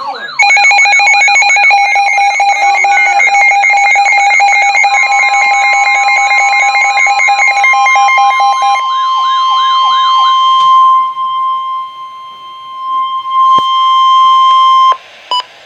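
Several electronic alarm sounds layered together: a wailing siren rising and falling a few times a second, over steady and pulsing beep tones. About ten seconds in, only the steady single-pitch NOAA Weather Radio warning alarm tone remains, near 1 kHz. It cuts off shortly before the end, followed by a few short beeps.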